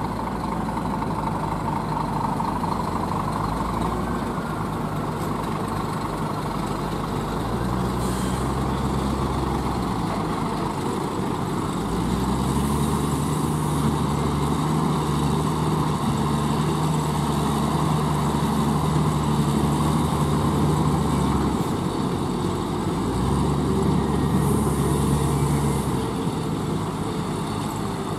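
Heavy diesel engines of tipper trucks and a wheel loader running at idle and low revs, a steady low drone whose note changes every few seconds.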